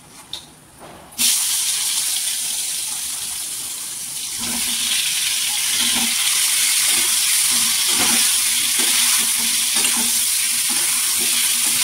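Raw green mango pieces hitting hot mustard oil in a metal kadhai: the oil bursts into a loud sizzle about a second in and gets louder again a few seconds later as more pieces go in. A spatula stirs the frying pieces near the end.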